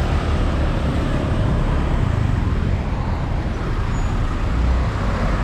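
Steady traffic noise heard from a moving motorbike: a low engine and road rumble, with scooters and small trucks passing close by.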